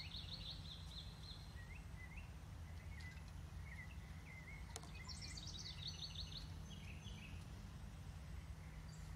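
Songbird singing outdoors: a fast trill of repeated high notes at the start and again a little past halfway, with short single chirps in between, over a steady low rumble.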